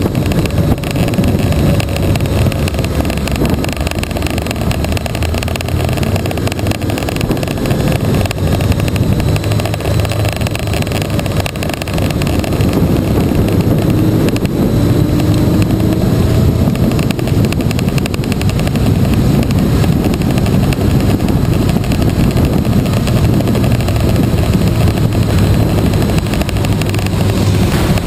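Motorcycle engine running steadily under way, its pitch drifting a little, heard from a bike-mounted camera with constant wind and road noise.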